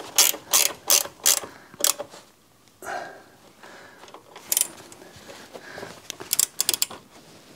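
Mechanical clicking from hand work on the Toro eFlex reel mower's cutting unit: a run of sharp clicks about three a second, a pause, then a quick flurry of clicks near the end.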